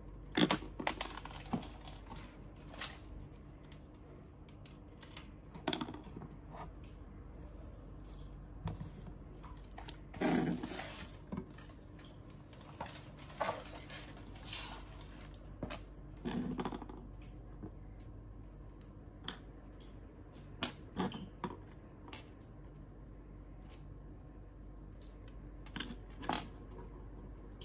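Small plastic toy pieces and packaging handled on a wooden tabletop: scattered light clicks and taps, with a few brief rubbing or crumbling sounds.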